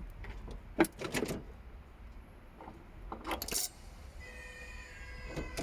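A few sharp clicks and knocks in quick groups, with a cat meowing faintly about four seconds in.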